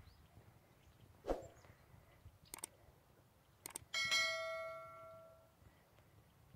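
Subscribe-button sound effect: quick mouse clicks, then a bright bell ding that rings out and fades over about a second and a half. About a second in there is a single sharp knock.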